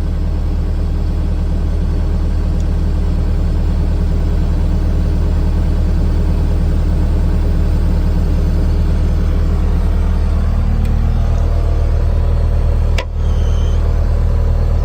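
Bobcat S250 skid steer's Kubota diesel engine running steadily, with a slight change in its note about ten seconds in and a brief sharp click about thirteen seconds in.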